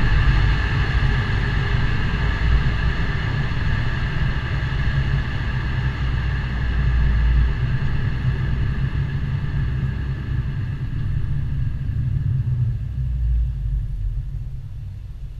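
Volkswagen Passat CC 3.6 FSI's VR6 engine and exhaust running with a steady low rumble, which fades gradually over the last few seconds.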